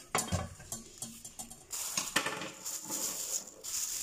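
Cut carrot pieces and utensils knocking and clinking against kitchen dishes on the counter. From a little before halfway, a plastic bag rustles steadily.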